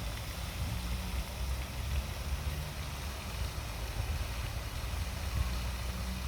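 Motorboat engine running steadily as a low, even rumble, with wind rushing over the microphone.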